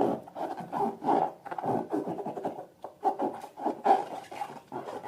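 Rubber balloons and slime being squeezed and rubbed by hand: a string of irregular, short rubbery rubbing sounds.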